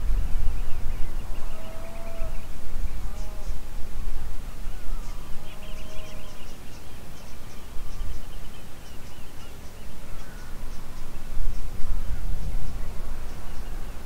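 Wind rumbling on the microphone, with birds calling now and then: short arched calls and some higher chattering.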